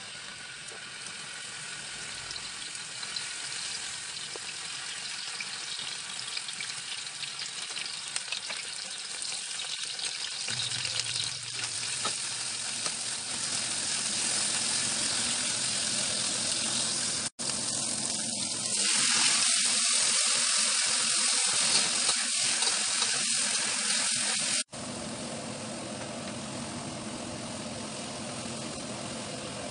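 Oil sizzling in a metal wok as spices and then tofu with sliced green chilies are stir-fried and turned with a ladle. A steady sizzle that grows louder about halfway through and cuts out for an instant twice.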